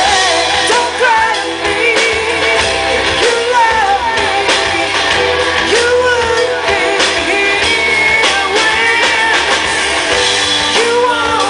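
Live rock band playing loudly: a woman sings lead over electric guitar, bass and a steady drum beat.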